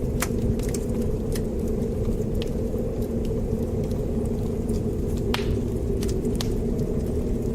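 Wood fire crackling in a fireplace: a steady low rumble of burning with scattered sharp pops and snaps, the loudest about five seconds in.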